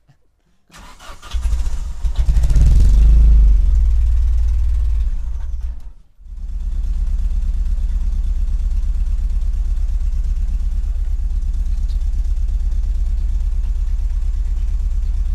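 Opel Calibra engine starting, running loud for a few seconds, then idling steadily with an even exhaust pulse after a brief break about six seconds in.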